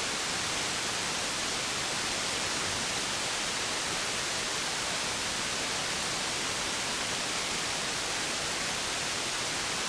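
CB radio receiver hissing with steady static on an empty channel between transmissions.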